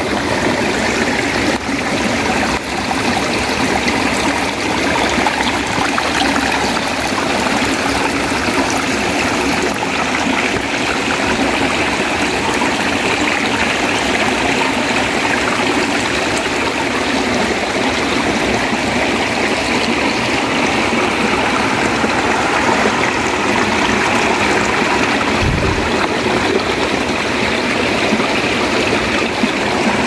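Rocky forest stream flowing steadily, water rushing and trickling between boulders.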